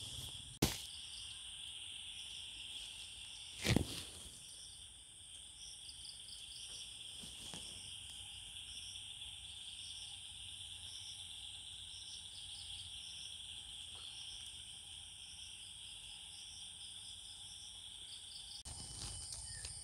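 Forest insect chorus: a steady high-pitched buzz with rows of faster pulsing chirps above it. Two short thumps, one just under a second in and a louder one about four seconds in.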